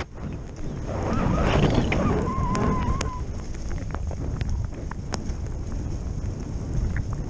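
Wind rushing over a small action camera and edges scraping over packed, groomed snow during a fast downhill run, with scattered light clicks. About a second in it grows louder for a couple of seconds, with a brief wavering high tone near the end of that stretch.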